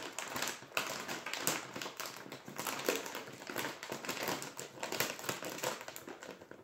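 Bag of Doritos Flaming Hot Nacho chips crinkling and crackling as it is handled and pulled open: a run of irregular sharp crackles.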